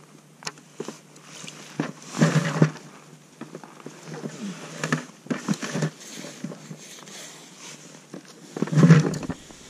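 Scattered clicks, taps and rustles of a freshly caught smelt being handled on the ice, taken off the hook and put down on the pile of fish. There are two louder rustling bursts, about two seconds in and near the end.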